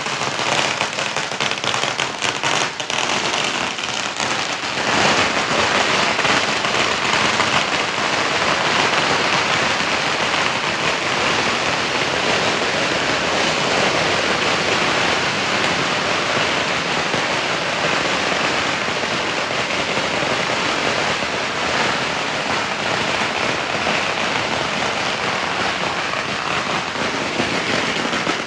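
A string of firecrackers going off: separate cracks at first, then about five seconds in a dense, continuous crackle that keeps on.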